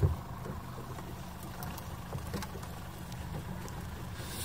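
Boat motor running steadily at trolling speed, a low drone, with a sharp thump right at the start.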